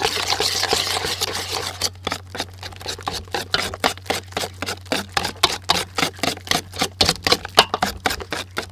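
Wire whisk beating a thick batter in a large stainless steel bowl: quick, rhythmic clicks and scrapes of the wires against the metal, about four or five a second.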